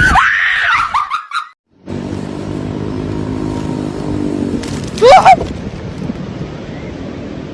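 A motor running with a steady hum, after a brief high-pitched cry at the very start, with one short loud high call about five seconds in.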